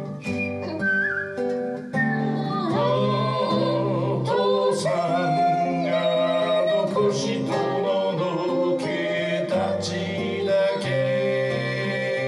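A man singing to his own acoustic guitar accompaniment, the guitar played underneath a sustained, wavering vocal melody.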